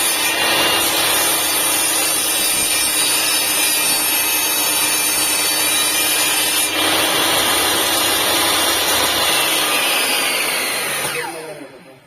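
INGCO TS15007 1500 W table saw running at full speed, sawing wood, with the sound changing about two-thirds of the way through. Near the end it is switched off and the motor and blade wind down, the whine falling in pitch until it dies away.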